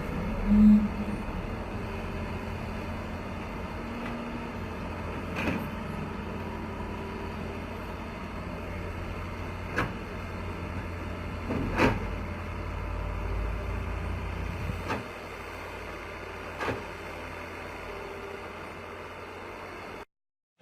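A heavy machine's engine running with a steady low rumble, with several sharp knocks or clanks at irregular intervals. The sound cuts off abruptly near the end.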